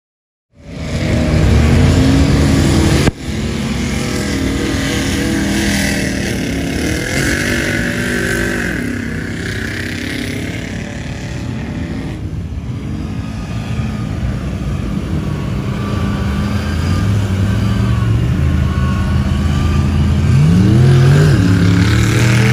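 Big truck engines running and revving, broken by a sudden cut about three seconds in, with a rev rising near the end.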